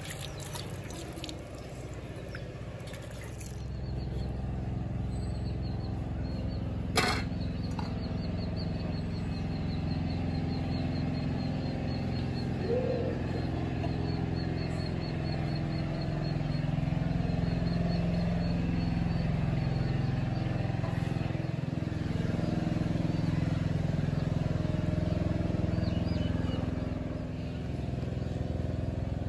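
A steady low rumble that swells about four seconds in and again about halfway through. A faint, rapidly repeated high chirp runs through the first half, and there is a single sharp click about seven seconds in.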